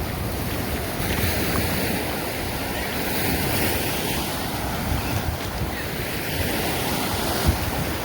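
Ocean surf washing on a beach, with wind buffeting the microphone in gusty low rumbles.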